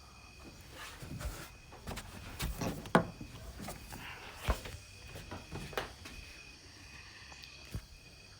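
Scattered light knocks and clicks, the sharpest about three seconds in, over faint steady hiss.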